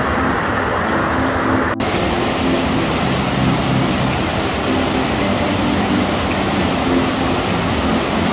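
Floodwater pouring over a reservoir's overflowing concrete spillway and churning down the rocks below, a loud steady rush of cascading water. About two seconds in the sound changes abruptly and becomes brighter.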